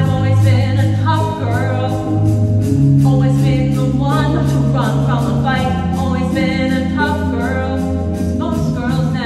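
Live musical theatre number: a sung melody over a pit band's accompaniment, with steady low sustained notes under the voice.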